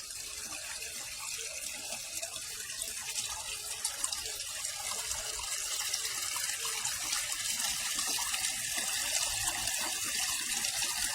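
Water running and splashing steadily, pumped through a flexible pond hose into a pond filter. The hissing flow grows slowly louder.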